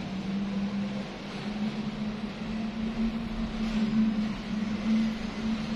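A steady low mechanical hum, like a motor or engine running, over a background of even noise.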